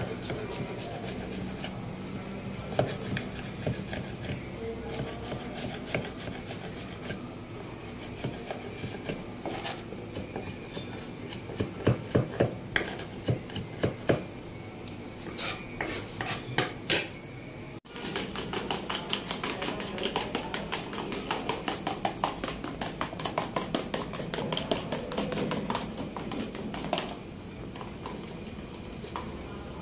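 Kitchen knife chopping a red onion on a wooden cutting board: a run of quick knife strikes on the wood, some of them sharper and louder. After an abrupt break about two-thirds in, a denser, faster run of taps follows.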